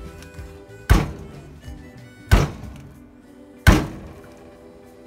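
Ridged cast-iron grill pan pounding chicken breasts flat through plastic wrap on a cutting board: three heavy thuds about a second and a half apart. Background music plays underneath.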